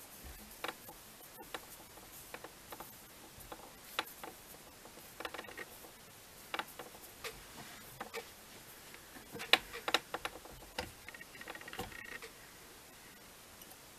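Scattered light clicks, ticks and soft rustles of hands working a fly-tying vise, winding a rabbit-fur strip around the hook and handling the tools, with a few sharper taps about two-thirds of the way through.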